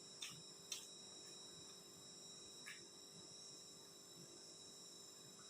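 Near silence: faint room tone with a steady high-pitched whine and three soft clicks, the first two close together near the start and the third a couple of seconds later.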